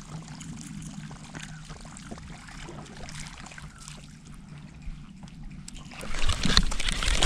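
Low steady hum with faint water sounds, then about six seconds in a loud, noisy surface splash that lasts a couple of seconds: a bass striking at a topwater lure and missing it.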